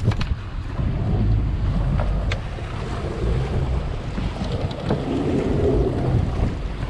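Strong wind buffeting the microphone in an uneven low rumble, over water washing against the boat's hull.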